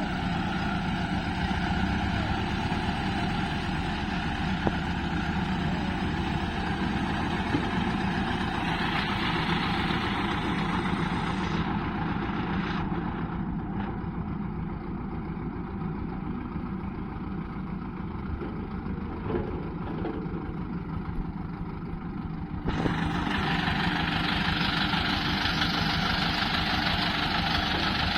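Heavy diesel engine of an excavator working with a tractor, running steadily without a break. The sound goes duller for about ten seconds in the middle, then turns brighter again.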